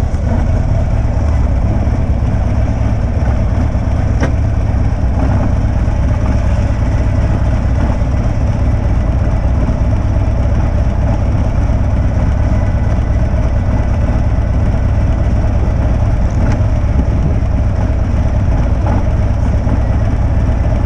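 Motorcycle engine running steadily, a constant low rumble with no change in pace.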